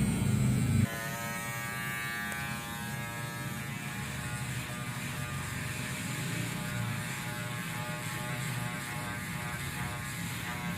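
Electric hair clipper buzzing, loud at first, then dropping abruptly about a second in to a quieter, steady motor buzz with a higher whine.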